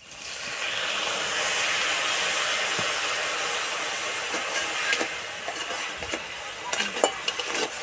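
Water poured onto sugar in a hot metal kadai sizzling and hissing as it steams off, the first stage of melting the sugar into syrup. The hiss starts suddenly, eases after about five seconds, and a metal spatula clicks and scrapes against the pan near the end.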